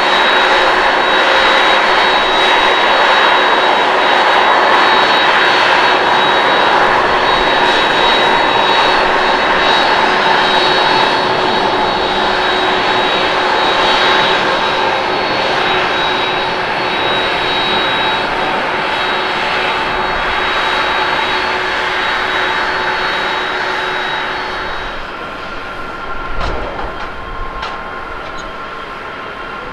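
All Nippon Airways Boeing 777-200ER's twin jet engines at takeoff thrust as it lifts off and climbs out: a loud, steady jet roar with high whining tones that slowly fades. About 25 seconds in it gives way to quieter, more distant airport jet noise.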